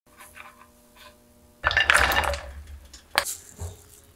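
Kitchen cooking sounds from a stainless-steel pan and metal spoon: faint light ticks, then a loud noisy rush lasting about a second, and a sharp clink about three seconds in.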